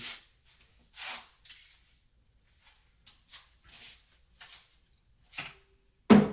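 Handling noises from parts being moved around an engine bay: scattered faint rustles and light clicks, then a sudden loud clatter right at the end.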